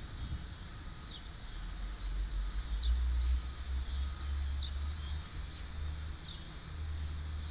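Low rumble of distant thunder, swelling from about a second and a half in. Under it runs a steady buzz of insects, and a bird gives a short falling chirp every second or so.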